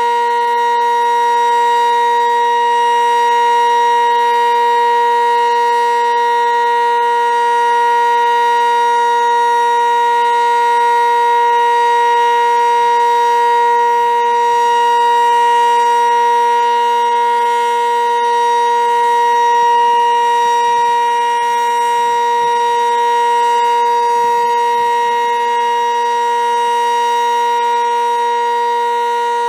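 Sentry 15V2T outdoor warning siren sounding a loud, steady tone that holds one pitch with gentle swells in volume, which is the Alert signal of the monthly test.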